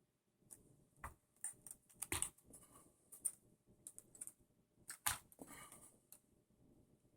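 Faint, irregular clicks and knocks of small parts being handled while fitting a brushed 540 electric motor into an RC buggy chassis, the sharpest about two and five seconds in.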